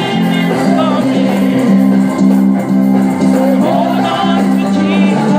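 Church gospel music: a lead singer's voice over a band with a steady, repeating bass line, heard as played back through a tablet's speaker.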